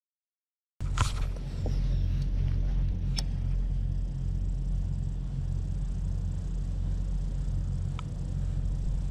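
A baitcasting reel being cranked steadily, a low continuous whirring rumble, with a few light clicks.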